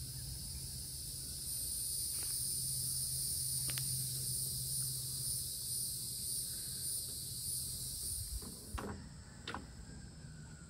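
Insects calling in a steady high-pitched chorus. It swells about a second and a half in with an even pulsing beat, about two a second, then cuts off suddenly near the end. Underneath are a low steady hum and a few faint clicks.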